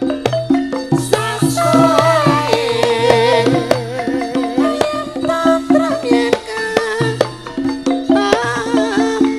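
Javanese gamelan music accompanying a tayub dance: hand drum and struck metal keys keep a steady beat. A female singer's wavering vocal line enters about a second in, drops out around four seconds, and returns near the end.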